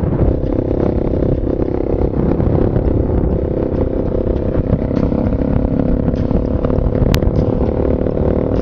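Motorcycle engine running steadily as the bike cruises along, with low rumbling wind noise on the microphone. One short sharp click comes about seven seconds in.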